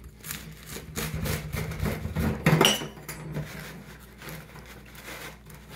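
Rolling pizza cutter slicing a calzone on a wire-mesh pizza screen, its metal wheel clattering and scraping over the mesh, with a ringing metallic clink about two and a half seconds in. It goes quieter for the last couple of seconds.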